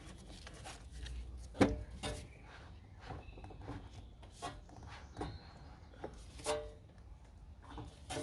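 Scattered clicks and knocks of cold air intake parts being handled and fitted in a car's engine bay, with one louder knock about a second and a half in and a few smaller ones after.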